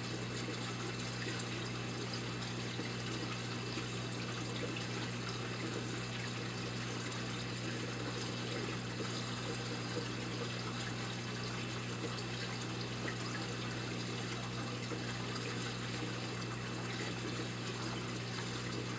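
Saltwater aquarium's filtration running: water steadily trickling and splashing over a constant low pump hum.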